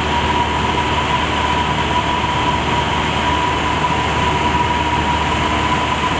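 Steady in-flight cockpit noise of a two-seat Pitts biplane: engine and propeller running with rushing airflow, and a steady high-pitched tone throughout.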